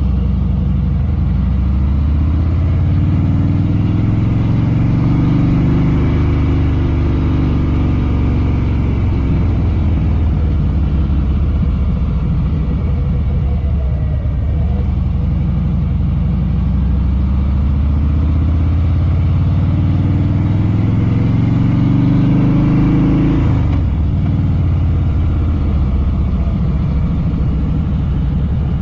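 Harley-Davidson Fat Boy Lo's V-twin engine running under way, rising in pitch as it accelerates twice, the second rise dropping off suddenly a little after 23 seconds in.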